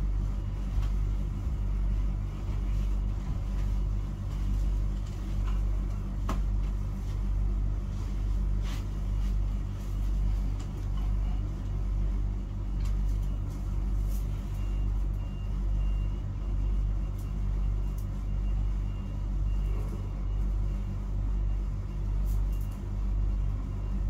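A steady low hum that swells and fades about once a second, with a few faint knocks and rustles as a person shifts position on a bed.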